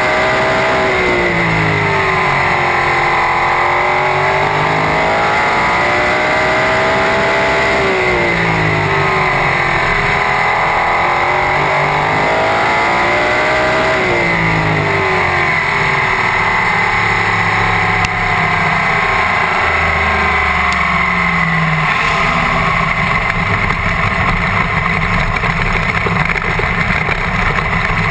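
Super sprint race car's engine, heard from inside the open cockpit, revving up and down repeatedly as it laps the oval. Around the middle the pitch falls in a long glide, and after that it runs lower and steadier.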